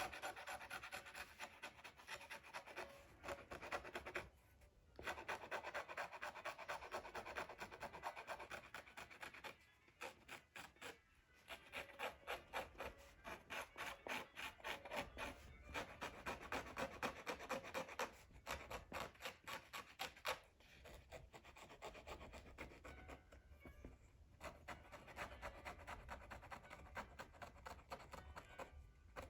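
Quick back-and-forth rubbing or scraping strokes, in runs of several seconds with short pauses between them.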